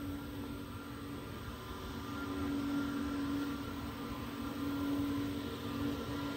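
Airbus A321neo turbofan engines running at taxi power as the jet turns on the runway: a steady hum with a low held tone and a fainter high whine, swelling a little midway.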